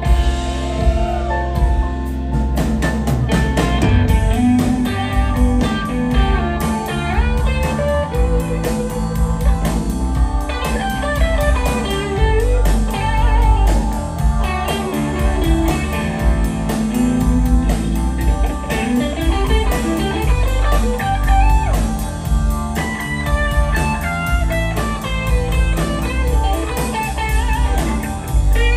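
Live rock band playing, led by an electric guitar solo on a Strat-style guitar with many bent, gliding notes, over drums and low bass notes.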